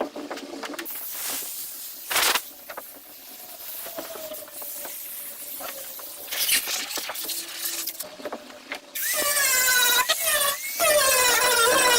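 Scattered knocks and handling noises, then about nine seconds in a power grinder starts up and runs loud, its high whine wavering in pitch as it is pressed into the boat's fiberglass.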